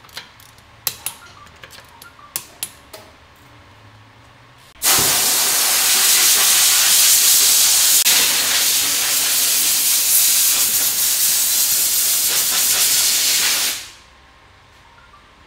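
A few sharp clicks from a wrench on the wheel bolts, then a loud steady hiss that starts suddenly about five seconds in, lasts about nine seconds and dies away quickly near the end.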